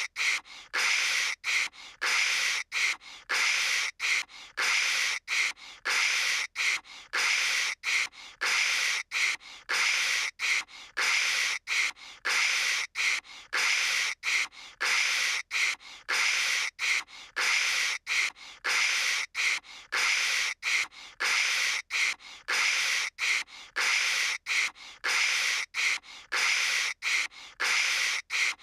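A voice imitating phone-line static with the mouth: a continuous string of short, hissing "kshh" bursts, over one and a half a second, broken by brief gaps.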